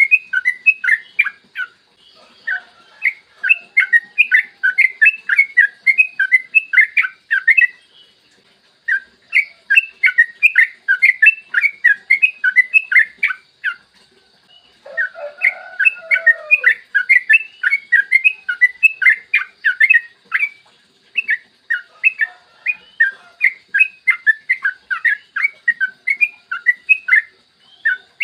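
Sooty-headed bulbul (trucukan) singing long rapid runs of bubbly whistled notes, several runs of a few seconds each with short pauses between them. A lower call joins briefly about halfway through.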